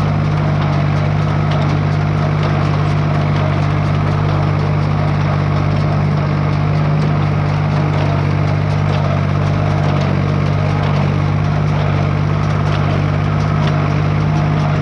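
Tractor engine running steadily while driving a small square hay baler in the field, with the baler's plunger and pickup clattering and ticking over the low engine hum.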